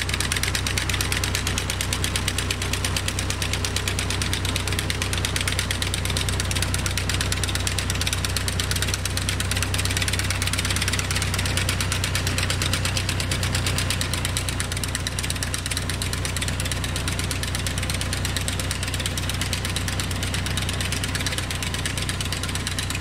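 Massey Ferguson 165 tractor engine running steadily under load while mowing, with the fast even clatter of a finger-bar mower's reciprocating knife cutting grass; it grows slightly fainter near the end as the tractor moves away.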